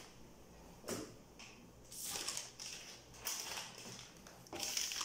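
Plastic face-mask packets crinkling and rustling as they are handled and lifted off a table, in four short bursts about a second apart.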